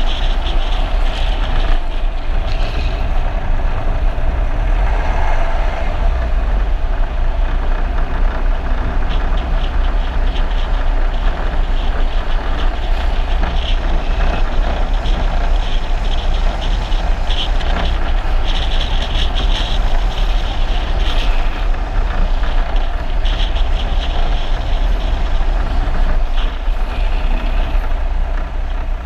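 Wind rushing and buffeting over the follow car's camera microphone at downhill speed, with a steady deep rumble of road and engine noise and brief higher hissing spells now and then.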